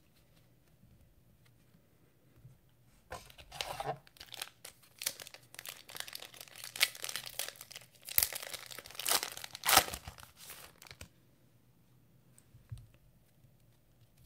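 A foil wrapper on a pack of basketball trading cards being torn open and crinkled. The ripping and crackling starts about three seconds in, comes in a series of rasping tears that grow loudest near the middle, and stops a few seconds before the end.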